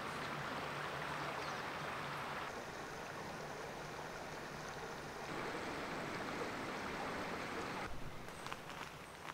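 Small waves lapping and trickling among stones at a lake's edge, a steady watery noise that changes abruptly in character a few times. A few faint clicks near the end.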